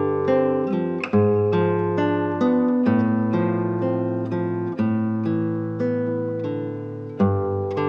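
Background music: an acoustic guitar picking a steady run of notes over held bass notes, with the chord changing roughly every two seconds.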